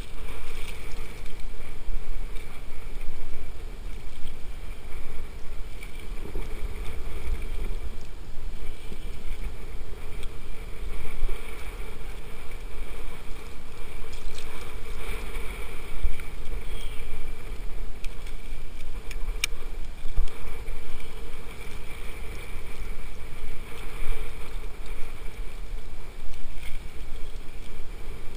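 Wind on the microphone and small choppy waves washing against a camera held at the water's surface: a steady wash of noise that rises and falls, heaviest in the low rumble.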